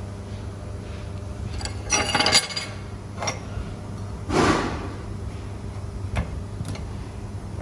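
Metal clinking and knocking as steel pieces are handled, with a short run of ringing clinks, a brief scraping rush and a few single knocks, over a steady low machine hum.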